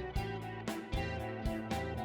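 Background music: a guitar-led instrumental track with a steady beat of about two strokes a second.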